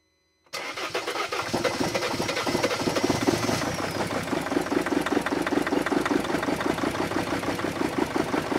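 Dodge Sprinter van's diesel engine cranked on the starter about half a second in and catching, the starter's whine dropping away after about three seconds. It then runs on with an even rhythmic pulse, a little rough, after being a no-start.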